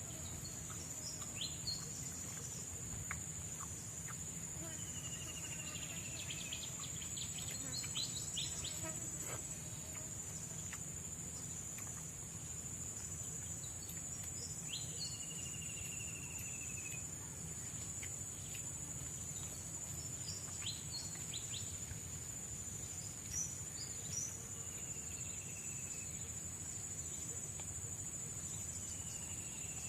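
Forest ambience: a steady, high-pitched chorus of insects, with a bird giving a long, slightly falling whistled call four times. A few light clicks are scattered through it.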